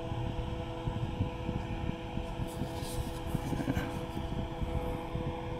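Steady electrical hum with rumbling handling noise close to the microphone, as hands turn a closed folding knife. A faint scratchy rubbing comes about halfway through.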